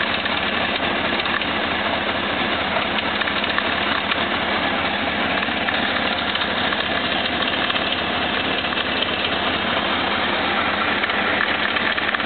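1997 Honda CBR600 F3's inline-four engine running steadily at idle, with a knocking noise whose cause the owner cannot identify.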